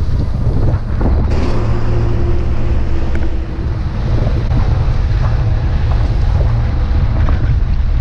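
Wind rushing over the microphone of a camera on a moving flatbed pickup, over the steady low rumble of the truck and the round baler it is towing.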